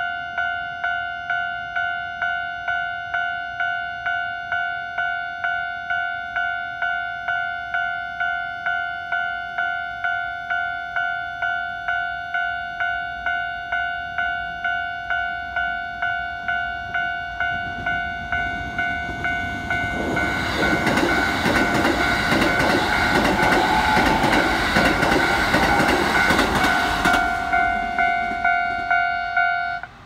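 Japanese level-crossing alarm ringing in a steady electronic ding-ding, about two strokes a second. Past the middle, a Keikyu 1000-series electric train runs past the crossing. Its wheels and running gear build to the loudest part and fall away a few seconds before the end, while the alarm keeps ringing.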